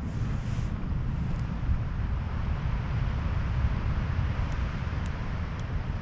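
Steady low rumble of wind buffeting the microphone outdoors, with a broader hiss swelling about three to four seconds in and a few faint ticks near the end.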